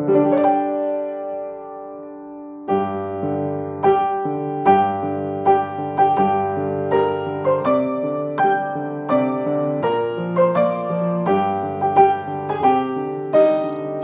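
Grand piano played solo: a held chord dies away, then about three seconds in a steady, even stream of broken-chord notes begins over sustained bass notes.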